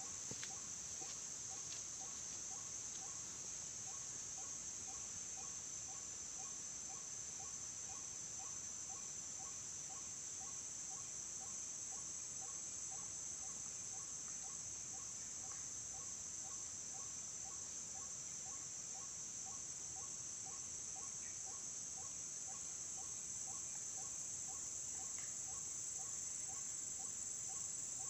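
Steady, high-pitched insect chorus, with a faint call pulsing evenly about twice a second underneath.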